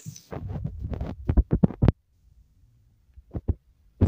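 Low rumbling thumps on the microphone for about a second and a half, then quiet with a few small clicks near the end.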